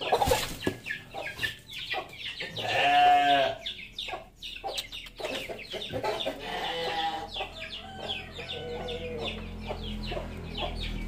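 Chickens clucking, with a knock right at the start and one louder drawn-out call of about a second, about three seconds in.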